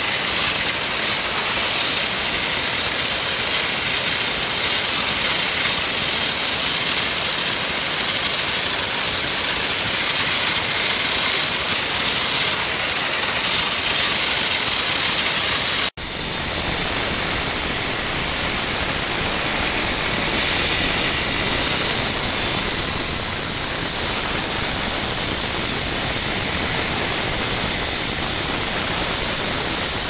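Nozzle of a COMMANDO dry ice blasting machine hissing steadily as it blasts dry ice in compressed air to strip asphalt buildup from paving equipment. About halfway through, the sound cuts out for an instant, then returns louder and brighter.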